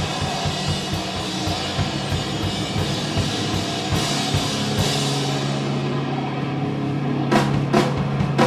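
Live rock band playing an instrumental passage, the drum kit to the fore, with a cluster of sharp drum hits near the end.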